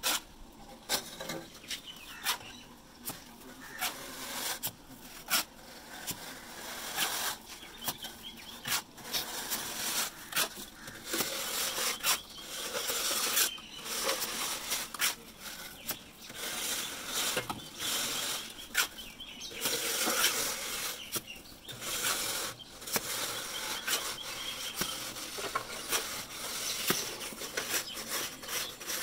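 Steel masonry trowels scraping, rubbing and tapping wet cement mortar onto brick in irregular strokes as the walls of a septic tank are plastered.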